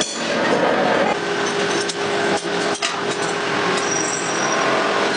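Metal-cutting workshop machine running as it works steel sprocket blanks: a steady machine hum with dense metallic clatter and a few sharp knocks.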